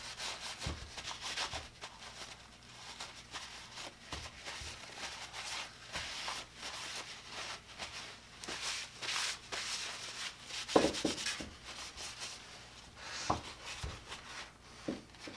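Cloth rag rubbed back and forth over a cleaned three-jaw metal lathe chuck, a repeated hissing wipe, with a few light knocks of metal being handled about two-thirds of the way through.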